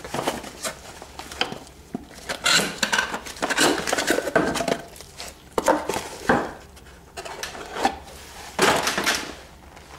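Light metallic clinks and rattles at irregular intervals as new brake pads with steel backing plates and small metal parts are handled.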